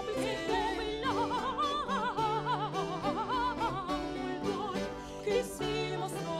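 Soprano and contralto singing an early Baroque duet in Italian style, with vibrato and quick ornamental trills, over a theorbo and harpsichord continuo.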